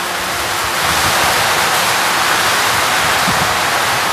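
Heavy rain falling in a steady, loud hiss.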